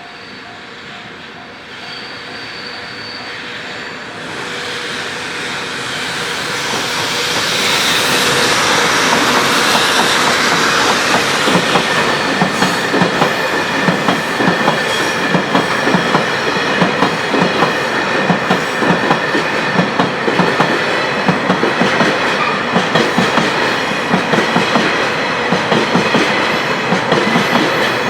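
A JR Freight EH200 electric locomotive and its freight train approach and pass over a level crossing, growing louder over the first several seconds. The wheels then clatter rapidly and steadily over the rail joints. A crossing warning bell rings at the start.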